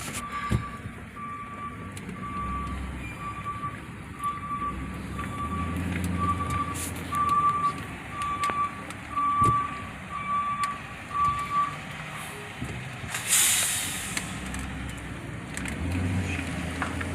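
Vehicle backup alarm beeping steadily, a little under two beeps a second, over a low engine rumble; the beeping stops about twelve seconds in. A short hiss follows about a second later.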